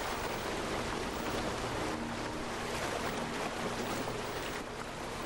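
White water rushing over rocks in a river rapid: a steady, even noise.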